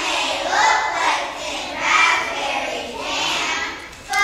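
A group of young children singing together in unison, in short phrases of about a second each, with a brief break near the end.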